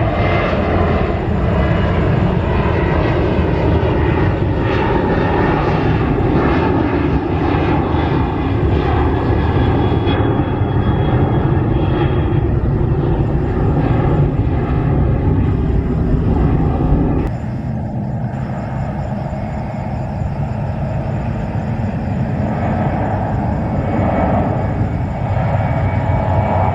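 Airliner engines running loudly during a take-off or landing, a dense steady noise. The level drops suddenly about two-thirds of the way through, then slowly builds again.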